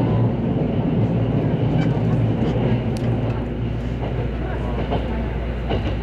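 Electric multiple-unit train running along the line: a steady low rumble of motors and wheels on rail, with a few faint clicks.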